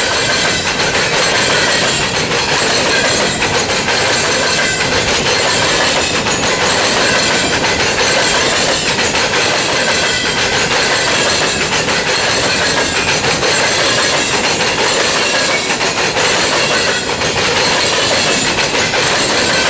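Freight train of steel coal gondolas rolling past close by. It makes a steady, loud rumble of wheels on rail, with a clickety-clack over the rail joints.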